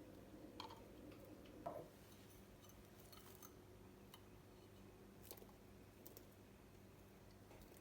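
Near silence: quiet room tone with a few faint, short clicks and taps, the most distinct about two seconds in.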